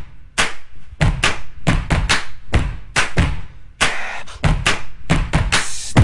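Beatboxing: a mouth-made drum beat of deep kick-like thumps and sharp snare and hi-hat clicks at a steady pace, about three or four strokes a second, with a couple of longer hissing strokes.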